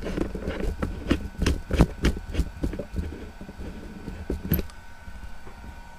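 Quick clicks, taps and knocks of hands handling a laptop's plastic chassis and motherboard, busiest in the first three seconds, then a few scattered taps.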